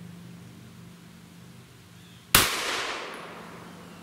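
A single 9mm pistol shot from a Ruger SR9C compact handgun, fired with a handloaded round, a little over two seconds in; the sharp report trails off over about a second.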